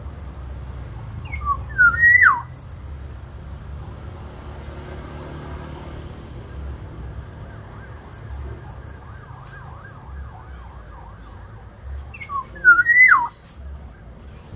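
Black-naped oriole calling twice, about ten seconds apart: each call is a few short whistled notes rising in pitch, then a loud downward-sliding whistle. A steady low hum lies under it.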